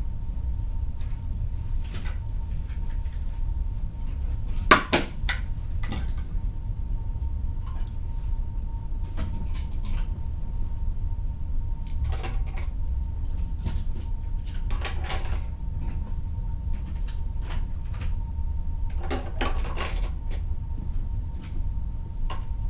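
Ship's cabin at sea: a steady low rumble with a faint constant hum, and scattered knocks and creaks of the cabin fittings. The loudest cluster of knocks comes about five seconds in, with several more later.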